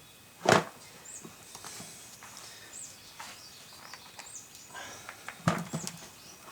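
A shovel thudding into and scraping through garden soil: one sharp thud about half a second in, then a quick cluster of thuds and scrapes near the end. Short high bird chirps come now and then.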